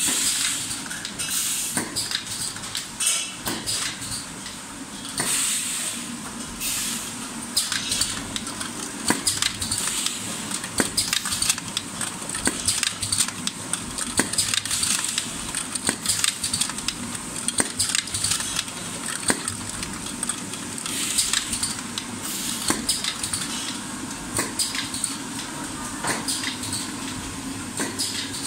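An automatic screen printing machine for oil filters running, with its steel filter canisters clinking and clacking against one another and the conveyor many times over a steady machine hum. Short hissing bursts come and go throughout.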